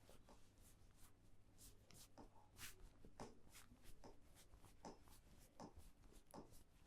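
Faint rubbing and scratching of a barber's hands on hair and scalp during a dry head massage, a soft stroke every half second or so.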